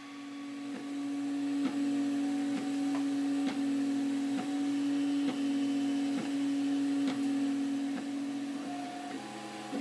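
MakerBot Replicator 3D printer running a print: its stepper motors give a steady whine of one pitch as the extruder head moves, with a faint tick a little under once a second, and the pitch shifts near the end.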